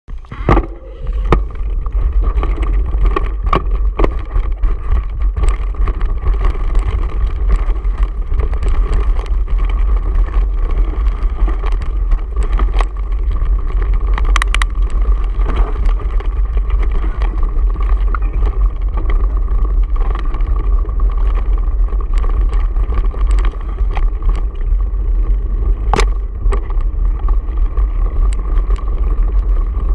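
Mountain bike riding over a rocky gravel trail, heard from a camera on the bike or rider: steady wind rumble on the microphone, a constant rattle and crunch from tyres on loose stones, and scattered sharp knocks as the bike hits rocks, the loudest near the start and about halfway through.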